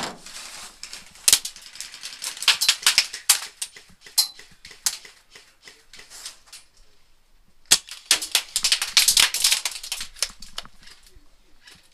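Airsoft gunfire: two flurries of rapid, irregular sharp cracks and clicks, the first over the opening few seconds and the second about eight seconds in.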